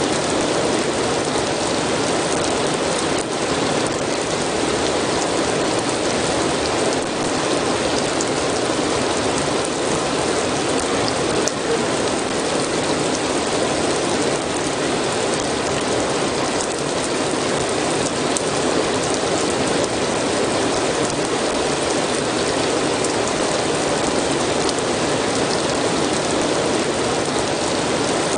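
Steady rain falling on a surface, an even continuous patter with occasional faint ticks of single drops.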